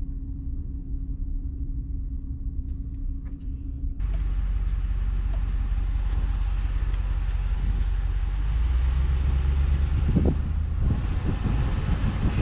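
Pickup truck driving on a paved road, heard from the cab: a steady engine and road hum, then about four seconds in a sudden louder rumble with wind and tyre hiss as sound comes in through the open side window. A few rough low buffets near the end.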